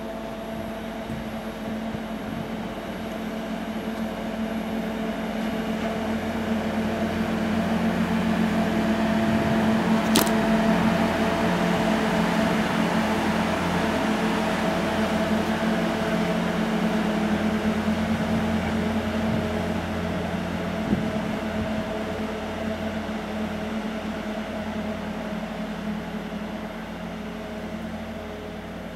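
Network Rail RGH20C rail grinder running through the station under its own power, a steady engine drone that grows louder as it passes close, peaks about halfway, then slowly fades as it draws away. A single sharp click sounds about ten seconds in.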